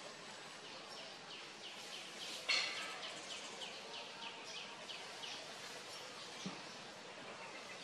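A bird calling in a rapid series of short falling notes, about three a second, which fade out about five seconds in, over faint forest ambience. A single sharp click about two and a half seconds in is the loudest sound, with a soft knock later.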